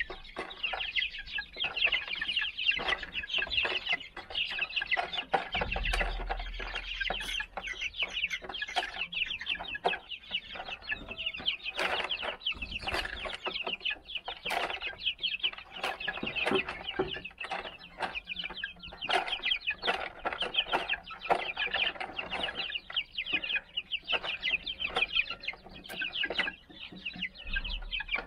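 A flock of 39-day-old Silver Laced Wyandotte chicks peeping, with many short, high calls overlapping without a break.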